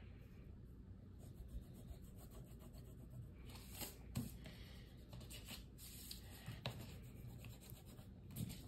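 Faint scratching of a drawing tool on paper in short, irregular strokes, starting about a second in, over a low steady room hum.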